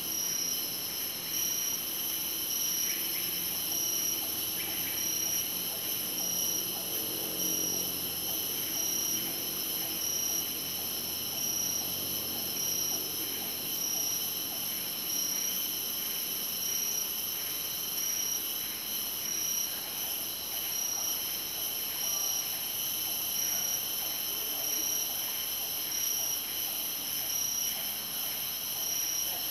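Rainforest insect chorus: several steady high-pitched drones at different pitches, with one call pulsing on and off about once a second.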